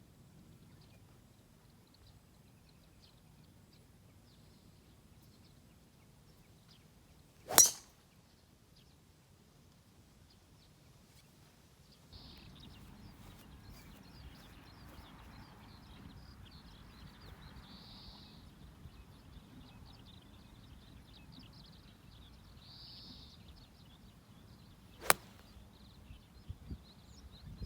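Two golf shots, a club head striking the ball with a sharp crack, one about eight seconds in and another near the end.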